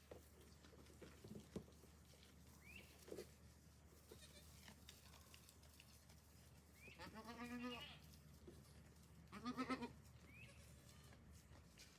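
Goat bleating twice: a long wavering bleat, then a shorter one about two seconds later.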